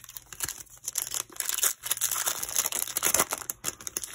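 Foil wrapper of a baseball card pack crinkling as it is torn open: a dense run of crackles, loudest in the middle.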